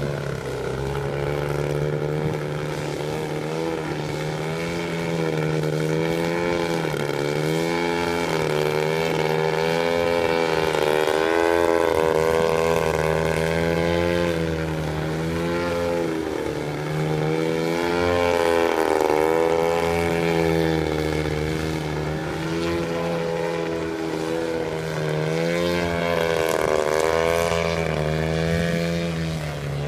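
Half-scale radio-controlled aerobatic airplane's engine and propeller running in flight, the pitch swinging up and down every second or two as the throttle is worked through aerobatic maneuvers.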